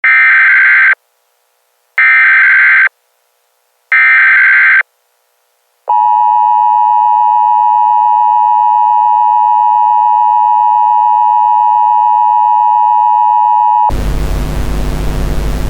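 Emergency Alert System SAME header: three one-second bursts of screeching data tones, a second apart, followed by a steady attention-signal tone for about eight seconds. Near the end the tone cuts off into a hiss of static as a voice begins reading the alert.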